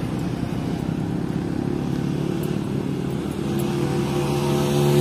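UD Quester truck's diesel engine running as the truck moves off, steady at first and getting louder about three and a half seconds in.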